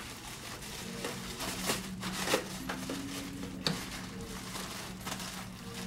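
Thin plastic packaging wrap being pulled and crumpled by hand off a roller shade tube: a few irregular rustles and crinkles, over a faint steady low hum.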